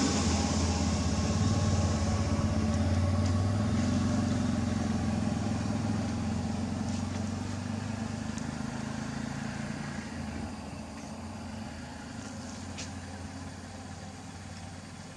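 A motor vehicle's engine running with a steady low hum, fading steadily as it moves away.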